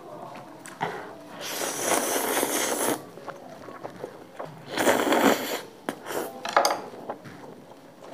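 Chopsticks stirring and lifting a pile of sauce-coated Wai Wai instant noodles on a wooden board. There are two bursts of wet squishing, one about a second and a half in and a shorter one about five seconds in, followed by a few light clicks of the chopsticks.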